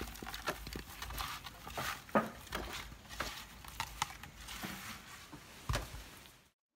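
Irregular clicks, taps and rustles of hands mixing chopped young jackfruit and spices in a clay pot. The sound cuts off abruptly near the end.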